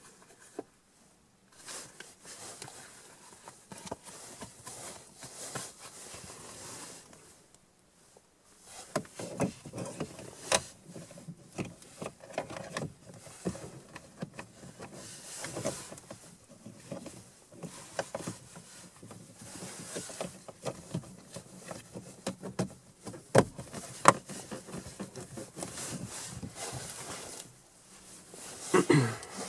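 Irregular handling noises of small car-interior parts: rustling with scattered light clicks and knocks, a few sharper clicks about ten seconds in and again near twenty-four seconds.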